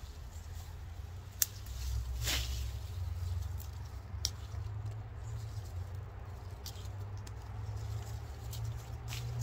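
Scattered sharp small clicks and rustles, a few seconds apart, over a steady low rumble.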